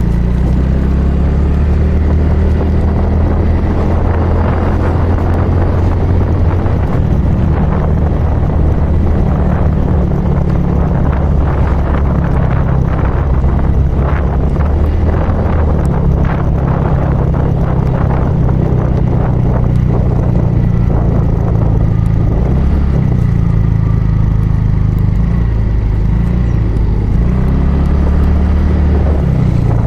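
Motorcycle engine running while being ridden, with a steady rushing noise over it. The engine note shifts up and down with speed, dipping and changing several times in the last third.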